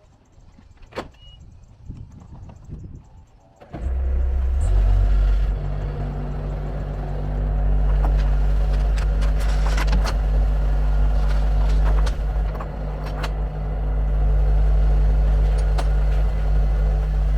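Quiet with a few clicks and knocks, then about four seconds in a heavy engine comes in suddenly and runs at a steady, low, loud pitch, with clicks and knocks over it.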